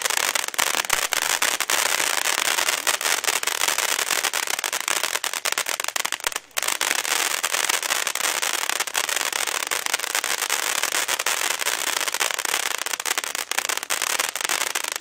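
Firework fountain burning: a steady hiss of spraying sparks thick with crackling pops, with a brief break in the spray about six and a half seconds in.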